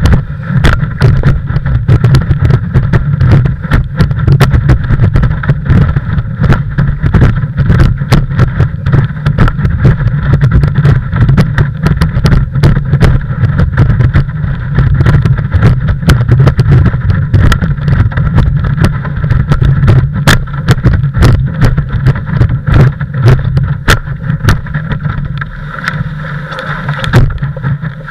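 Muffled wind-and-water rumble picked up by an action camera on the nose of a planing windsurf board, with frequent irregular knocks and splashes as the board slaps through the chop.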